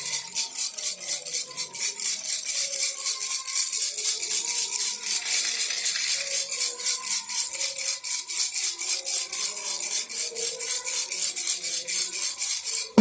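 Baby rattle shaken steadily and quickly, its beads clicking several times a second with faint ringing tones underneath; the shaking stops abruptly near the end.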